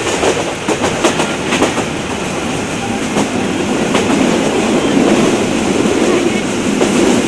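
Passenger train running along the track, heard from inside a carriage at the window. Wheels click over the rail joints a few times in the first half, then a steadier rumble follows.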